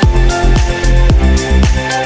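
Electronic background music with a steady, driving beat.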